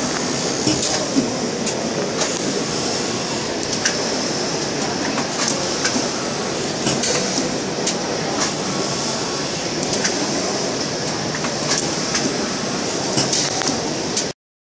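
Kippax 2000T clam-shell screen printing machine running: a steady mechanical hiss with many scattered clicks and knocks, and a thin high whine that comes and goes several times. The sound cuts off suddenly near the end.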